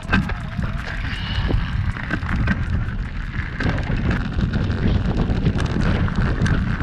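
Wind buffeting an action camera's microphone while a mountain bike rolls across gravel, with many small clicks and rattles from the tyres and bike.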